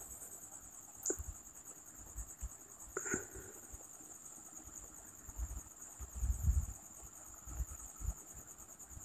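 Faint, steady, high-pitched chirring of insects, finely pulsing throughout, with a few soft clicks and low thumps near the middle.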